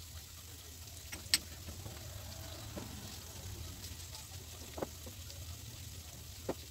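Sliced onions frying in oil in a steel wok: a faint steady sizzle with a few sharp pops, the loudest about a second and a half in.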